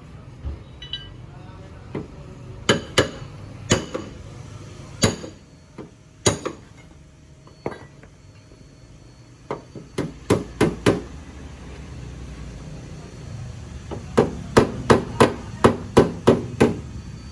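Hammer blows during car body repair work: scattered single strikes, a short cluster of about four partway through, then a quick run of about nine strikes near the end.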